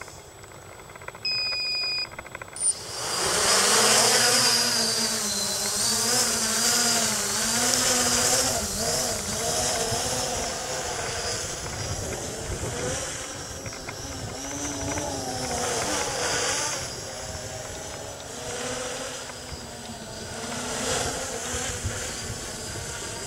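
A couple of short high electronic beeps about a second in, then the Tornado Whirlwind 600 V-tail multirotor's motors and props spin up about three seconds in and it takes off. Its props keep up a steady buzzing whine whose pitch wavers up and down as the throttle changes in flight.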